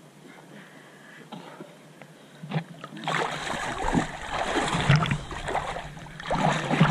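Water splashing and churning hard, starting about two and a half seconds in and going on in uneven surges.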